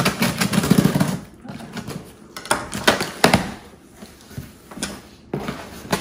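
Packing tape on a cardboard box being slit along the seam, a scratchy tearing scrape in the first second, then the cardboard flaps pulled open and handled, with several sharp knocks.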